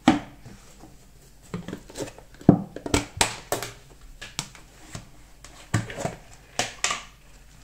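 Plastic food containers being handled and set down on a stone countertop: a scattered series of sharp knocks and clacks, busiest about three seconds in and again near the end.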